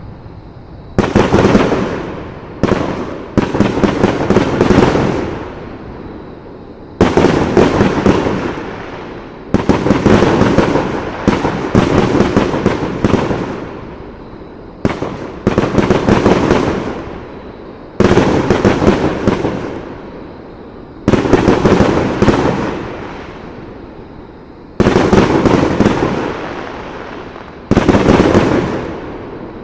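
Fireworks display: aerial shells bursting one after another, a loud bang every two to three seconds, some in quick pairs. Each bang trails off over a second or two in a crackling, rolling echo.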